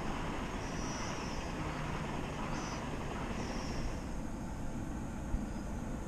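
Wind rumbling and buffeting on the microphone, with three short high chirps in the first four seconds and a single sharp knock about five seconds in.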